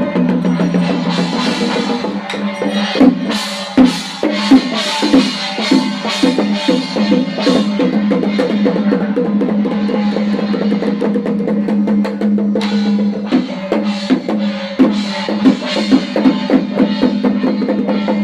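Chinese temple ritual music: drums and percussion beating in a dense, irregular pattern over a steady sustained tone.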